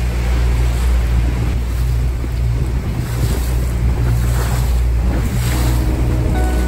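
A motorboat under way: the engine's steady low drone with water rushing and splashing past the hull and wind buffeting the microphone. Faint music begins to come in near the end.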